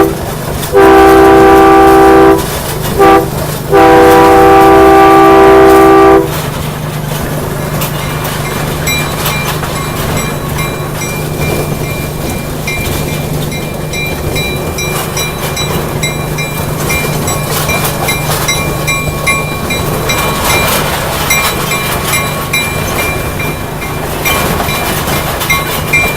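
Horn of a small ride-on train sounding loudly in three blasts, long, short, long. The train then runs along with a steady low engine hum, rattle and a light regular ticking.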